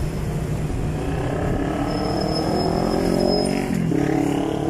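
Motorcycle engine revving up and rising in pitch as it pulls away, over a steady rumble of city traffic.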